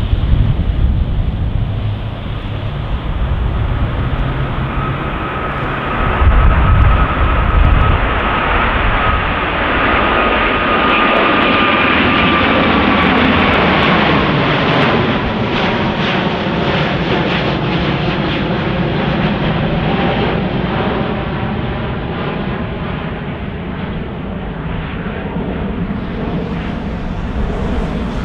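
Airliner's engines heard passing by, with a whine that drops slightly in pitch midway as the aircraft goes past, and a sweeping, phasing sound after it. Gusts of wind hit the microphone in the first seconds.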